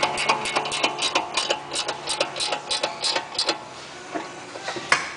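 Ratchet wrench clicking in quick runs, about five clicks a second, as it turns the bolt of a steering knuckle spreader to open the knuckle's pinch slot. The clicking thins out after about three and a half seconds, with one sharper click near the end.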